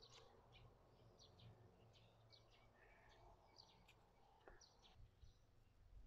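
Near silence: faint outdoor background with scattered short, high chirps of small birds over a low steady hum.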